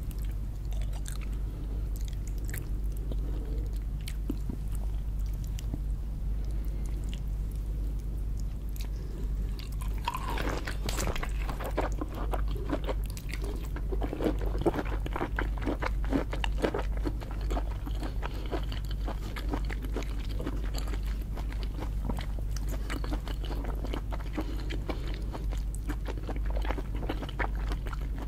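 Close-miked eating of lobster: biting, crunching and chewing, with many sharp crackles that get busier and louder about ten seconds in. A steady low hum lies underneath.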